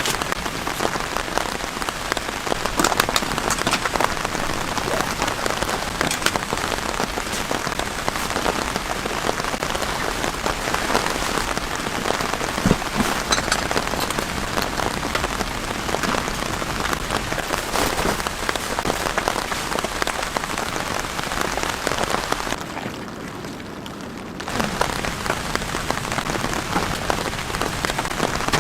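Steady rain falling on a surface, with many separate sharp drop hits over the hiss. Near the end it briefly drops away and turns duller for about two seconds, then comes back at full level.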